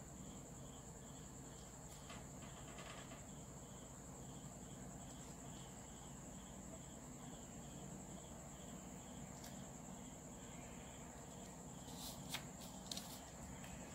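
Faint background with a steady high whine and a soft insect-like chirp repeating about twice a second. Light pen strokes on paper, and a few small clicks near the end.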